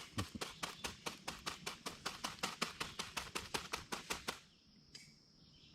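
A quick, even run of sharp taps or clicks, about six a second, that stops about four seconds in.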